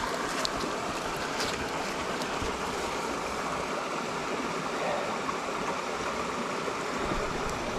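Steady rush of shallow stream water flowing over a riffle.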